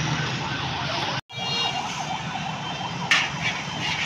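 Busy street traffic noise with a wavering, siren-like tone. The sound drops out for an instant about a second in.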